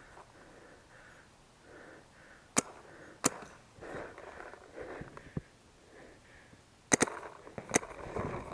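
Paintball marker firing five sharp shots: two about two and a half seconds in, under a second apart, then a quick double and a single shot about seven seconds in. Faint rustling and wind noise between the shots.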